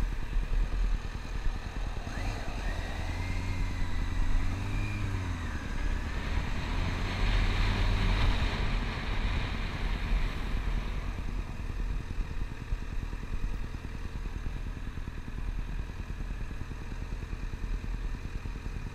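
Motorcycle engine running while the bike is ridden, with a steady low rumble. The revs rise and fall a few seconds in, and a louder rushing stretch comes near the middle.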